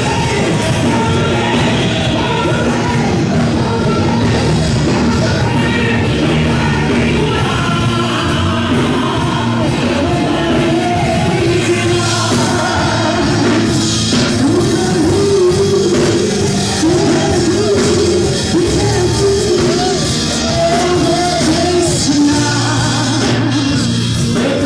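Loud church music: a band playing with singing voices, continuous and full.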